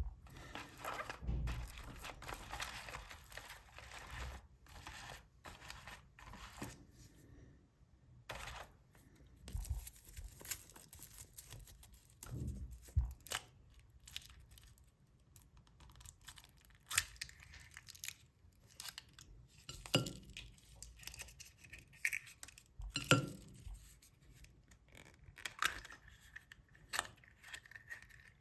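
Foil wrappers of chocolate surprise eggs being torn open and crinkled by hand, with irregular rustling and a few sharper clicks and clinks.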